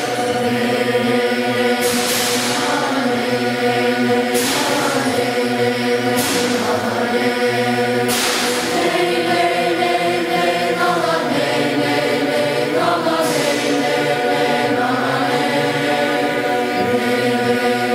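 Boys' choir singing a slow, sustained chant in held chords. A short noisy burst cuts in every two seconds or so.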